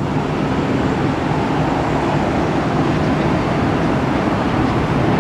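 Southwest Boeing 737's jet engines on the runway, a steady, even engine noise that grows slightly louder near the end.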